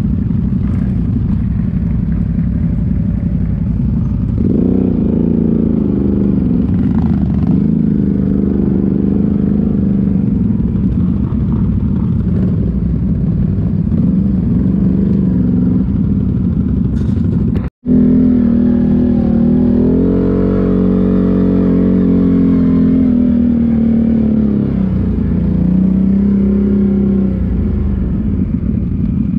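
ATV engine running with its revs rising and falling as it is ridden. About eighteen seconds in, all sound cuts out for a moment.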